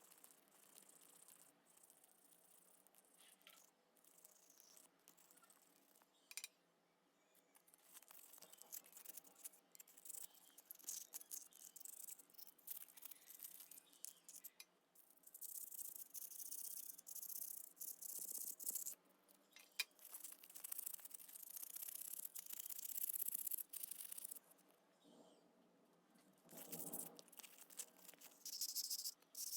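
Faint, intermittent scrubbing strokes on a small metal part, with scattered clicks and taps.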